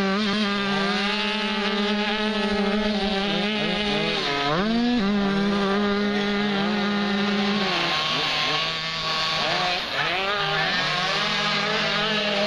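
Small kids' motocross bike engine running at steady high revs, with a quick throttle-off and back-on about four and a half seconds in, then lower, varying revs from about eight seconds on.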